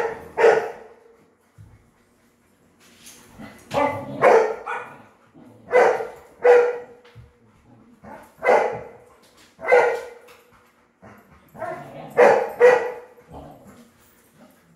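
Dog barking repeatedly, in loud bouts of one or two barks about every two seconds.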